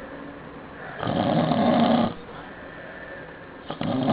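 Snoring: one long rasping snore about a second in, and the next beginning near the end.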